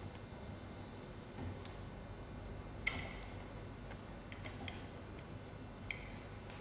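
A few scattered sharp metallic clicks with a brief ring, the loudest about three seconds in, from a Hounsfield tensometer as a brass test piece is loaded in tension. A faint steady low hum runs underneath.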